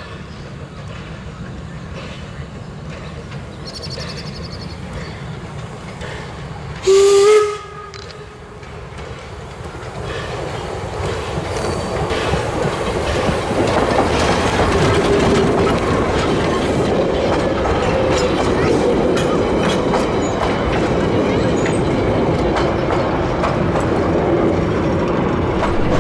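Steam locomotive giving one short whistle blast about seven seconds in, the loudest sound here. After it the train draws near and passes close, its running and the wheels clicking over the rail joints growing louder from about ten seconds and staying loud.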